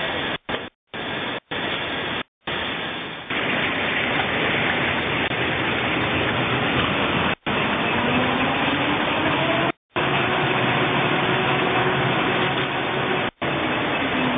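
Automatic toilet paper roll cutting machine (band-saw log cutter) running, a steady loud mechanical noise that breaks off abruptly into brief silences several times, with a faint rising whine about halfway through.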